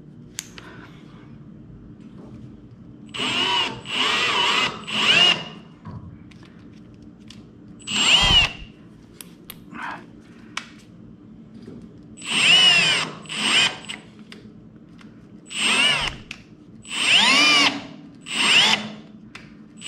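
Cordless drill turning a 10-32 tap into thin metal at slow speed with the clutch set low, run in repeated short bursts. The motor whine rises and falls in pitch with each squeeze of the trigger, with a few small clicks between bursts.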